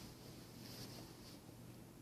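Near silence: room tone with a low hum and a few faint soft rustles.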